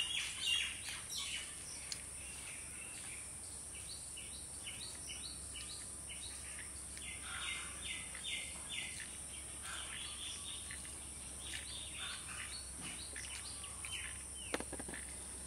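Small birds chirping outdoors, a long run of short, quick chirps repeated over and over, loudest near the start, over a steady high-pitched hiss.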